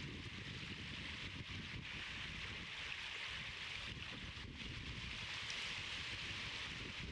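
Steady outdoor wind noise: a low rumble of wind on the microphone under an even, constant hiss.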